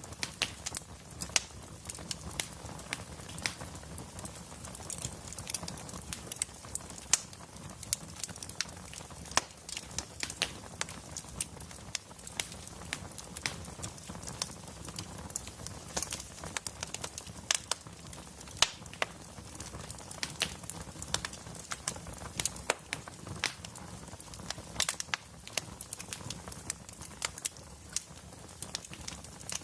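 Wood fire crackling in a fireplace: frequent irregular sharp pops and snaps over a low, steady rumble of burning logs.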